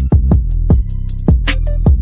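Background electronic music with a steady thumping beat and deep bass.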